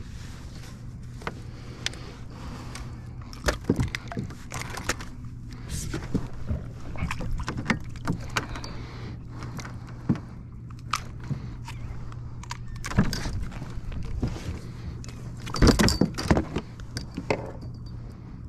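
Irregular knocks, clicks and rattles of a landed redfish and fishing gear being handled on a hard plastic kayak deck as the fish is clipped onto a stringer, with a louder cluster of knocks near the end. A steady low hum runs underneath.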